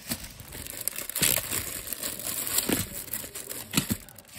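Plastic candy wrappers crinkling and rustling as a hand sets wrapped candy rolls down on a pile of wrapped candy, with sharp crackles, loudest a little over a second in and again near the end.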